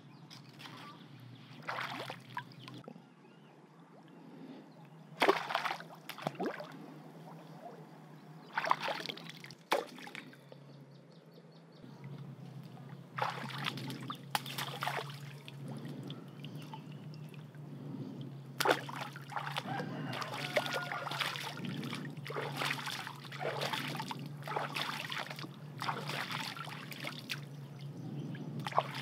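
Splashing and sloshing in shallow muddy pond water as someone wades and works a bamboo pole among the reeds, in separate splashes that come thicker in the second half.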